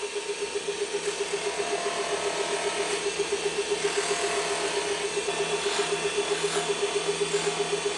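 Motor-driven cloth buffing mop spinning with a steady hum that pulses evenly several times a second, under a broad rushing hiss, while polishing compound is buffed onto a wooden pen.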